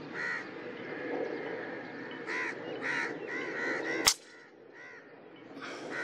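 Birds calling in short, repeated harsh notes, then a single sharp crack of a PCP air rifle firing about four seconds in; a couple of fainter calls follow.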